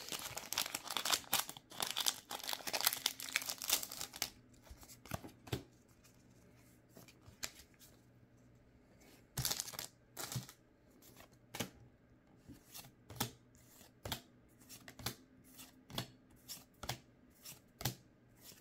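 A foil Pokémon booster pack wrapper crinkling and tearing open for about four seconds. After a quieter stretch, trading cards are slid off the stack one at a time, a short flick roughly every second.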